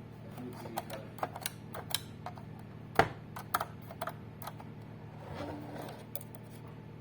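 Irregular clicks and taps of small hard parts and tools being handled, with one louder knock about three seconds in, over a faint steady low hum.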